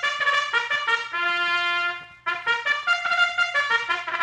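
Brass fanfare opening a 1946 radio program, heard from a transcription disc. A quick run of notes ends on a held note about a second in, breaks off briefly at about two seconds, and a second quick run follows.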